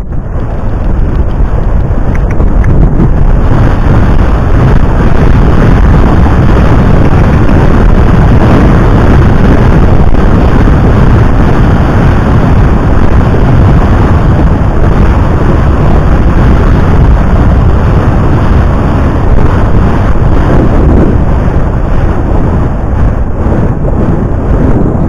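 Loud wind buffeting the action camera's microphone as the horse is ridden along, a steady roar that covers most other sound; it jumps up sharply about half a second in.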